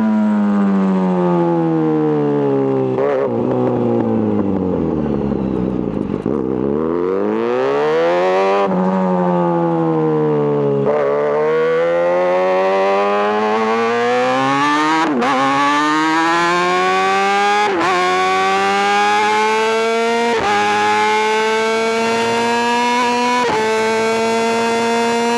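Kawasaki ZX-6R inline-four sport bike engine, ridden. The revs drop away for about the first six seconds as the bike slows. It then accelerates, pulling up through the rev range over and over, with short dips at each upshift, about six gear changes.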